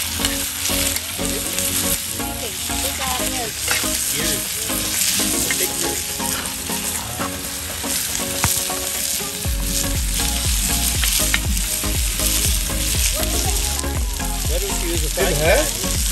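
Minced meat sizzling on a hot sizzling plate over a campfire grill, with a metal spoon scraping and stirring against the plate.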